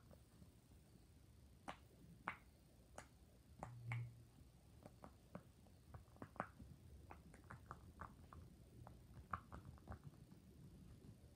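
Rainbow silicone pop-it fidget toy, its bubbles pressed one after another: a run of faint, irregular little pops, with a brief low thump about four seconds in.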